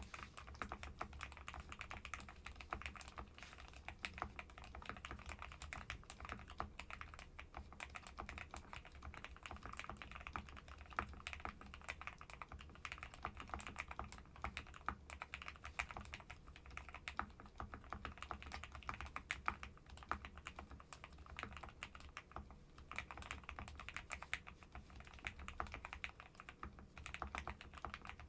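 Steady, continuous typing on a KBDfans D60 Lite mechanical keyboard with lubed Keyfirst Cream switches, tape, foam and jelly-tape spacebar mods, Durock v2 stabilizers and POM Jelly keycaps, picked up by a microphone on the desk.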